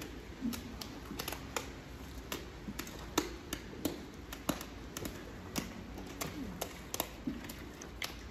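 Irregular sharp clicks and knocks, two or three a second, from a long-handled manure scraper working along the concrete stall curb of a dairy barn, over a low steady barn hum.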